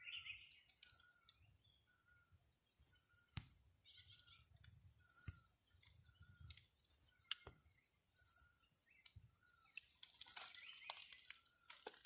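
Faint bird calls: a short, high, falling chirp repeated about every two seconds over a lower short note that recurs about once a second, with a few sharp clicks.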